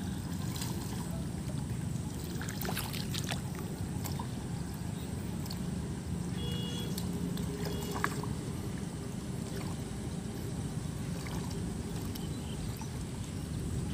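Hands splashing and squelching in the shallow muddy water of a flooded rice paddy, a few faint scattered splashes, over a steady low rumble.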